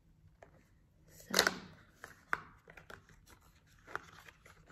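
A small paperboard cosmetics box being handled in the hands: a few short taps and rustles of cardboard, the loudest about a second in, together with a woman's spoken 'so'.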